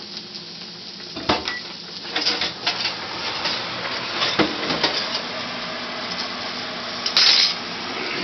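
Pots, pans and cooking utensils clattering on a stovetop, with a few sharp knocks and a brief louder clatter near the end. A short microwave keypad beep sounds about a second and a half in.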